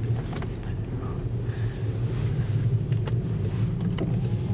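Inside the cabin of a 2010 Volkswagen Jetta 2.0T driving through snow: a steady low drone of the turbocharged four-cylinder engine and Bridgestone Blizzak WS70 snow tyres, with a few faint clicks about three and four seconds in.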